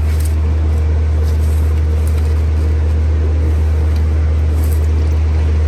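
A steady low hum that never changes in pitch, with faint scattered handling noise above it.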